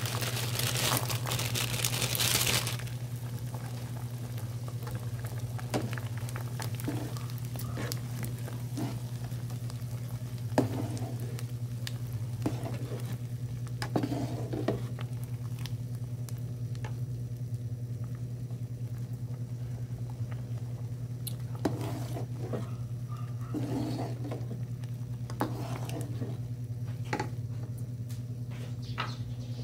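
A burst of crackling and crinkling for the first couple of seconds as pork cracklings (chicharon) are dropped by hand into a pot of simmering mung bean stew. Then the pot simmers over a steady low hum, with a few light clicks and taps now and then.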